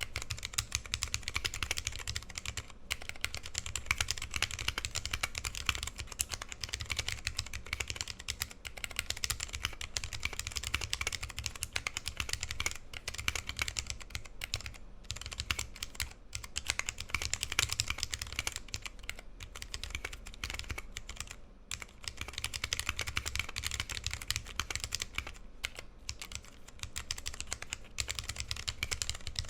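Continuous typing on a custom 60% mechanical keyboard with vintage brown Alps switches lubed with PTFE, PBT keycaps and GMK stabilizers: a steady stream of keystroke clicks and clacks with a few short pauses.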